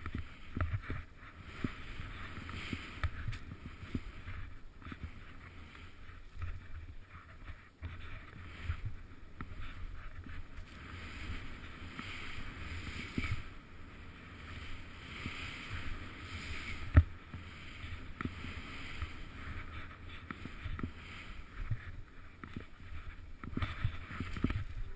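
Skis swishing and sliding through deep powder snow, heard from a camera worn by the skier, with frequent low thumps as the camera jolts over bumps and one sharp knock about two-thirds of the way through.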